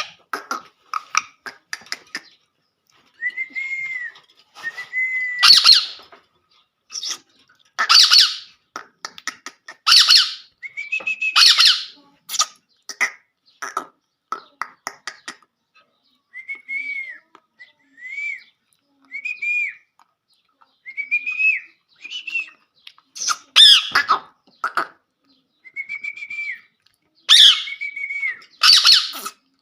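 Pet parrot giving harsh, loud squawks several times, with short whistles that rise and fall between them.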